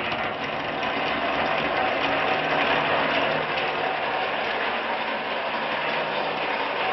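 Electric motor of a home-built 48-volt lawnmower running steadily on a 12-volt supply, with a dense mechanical rattle from its drive.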